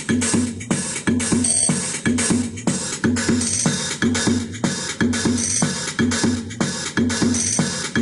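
Bass-heavy electronic music with a steady beat playing through a Blaupunkt BT51 8 W mono portable Bluetooth speaker, as a test of its bass.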